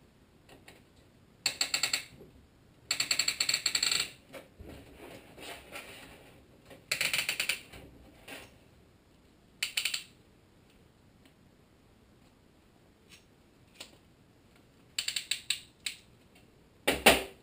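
Ratcheting piston ring compressor being tightened with its key around a piston, clicking rapidly in about six short bursts with pauses between them, as the band closes down on the piston rings.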